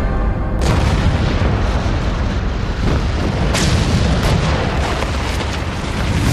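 Battlefield explosions and gunfire: a continuous low rumble broken by several sharp blasts, one about half a second in and a cluster about three and a half to four and a half seconds in.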